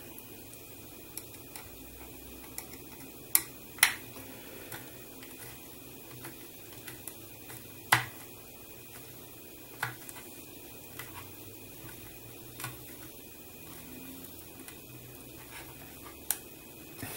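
Scattered clicks and ticks of a small screwdriver working tight screws into the metal frame of a scale-model body section, with plastic parts knocking as they are handled. A handful of sharper clicks stand out among fainter ones.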